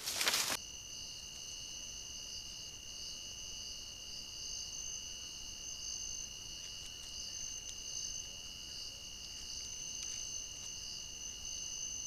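Night insects in the forest, likely crickets or katydids, keep up a steady high-pitched trill on several held pitches, with a few faint clicks over it. It opens with a brief loud rustling scuffle that stops abruptly about half a second in.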